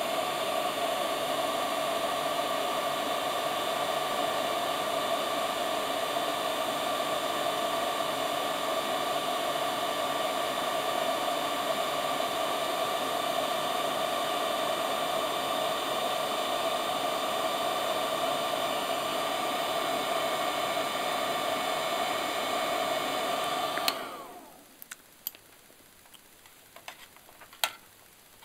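Electric heat gun blowing hot air steadily, a rushing noise with a fan-motor whine, heating the LED's star heatsink from below to melt the solder. About three-quarters of the way through it is switched off and winds down within a second, leaving a few faint clicks.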